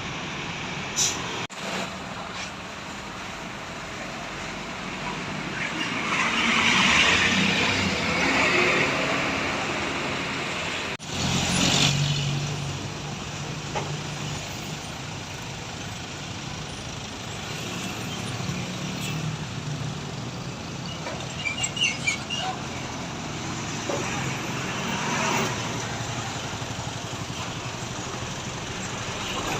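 Large buses passing along a road: engines running and tyre and wind noise swelling as each one goes by, with a couple of abrupt cuts in the recording.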